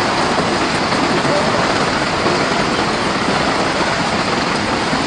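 Rain falling steadily: a dense, even hiss without a break.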